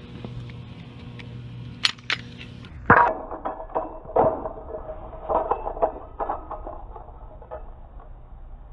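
A steady low hum with two sharp clicks, then a run of irregular clicks and clinks of small hard objects being handled.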